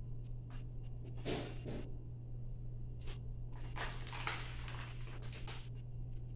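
Scratchy strokes on paper, as of drawing or writing: a burst about a second in, then a run of strokes from about three and a half seconds in, over a steady low hum.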